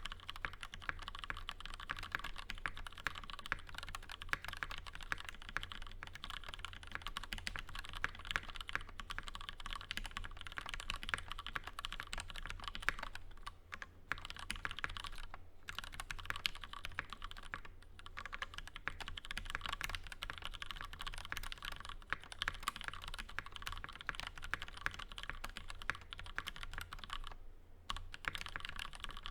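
Fast, continuous typing on a PH60 mechanical keyboard with lubed Gateron Milky Black linear switches, Cherry stabilizers and a POM plate: a dense stream of keystroke clacks, with brief pauses a few times.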